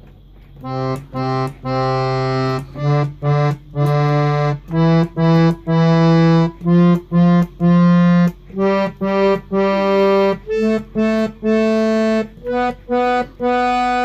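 Harmonium playing an alankar practice exercise: each note of the scale pressed three times over (sa sa sa, re re re …), climbing step by step to the upper sa. About eight seconds in, it turns and comes back down the scale.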